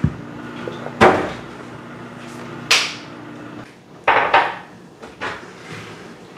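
Tableware at a meal: cutlery knocking and clinking against plates and dishes in several separate sharp strikes, two of them close together about four seconds in.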